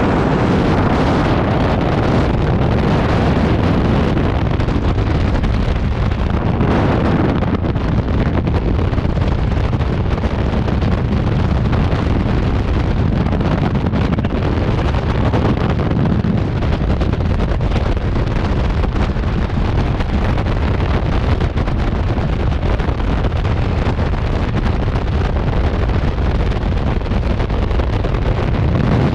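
Freefall wind rushing over a jumper's body-worn camera microphone: a loud, steady blast of buffeting air.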